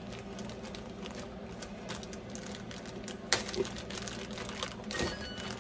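Plastic bag of baby carrots crinkling and rustling as hands work it open, with a sharp crackle about three seconds in. A faint steady hum runs underneath.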